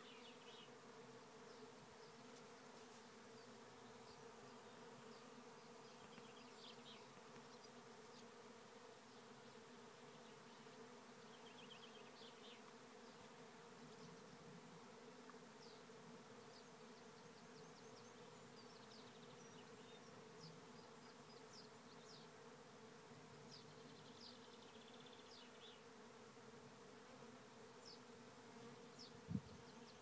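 Faint, steady hum of a honeybee swarm in flight, thousands of bees circling in the air. A single thump sounds near the end.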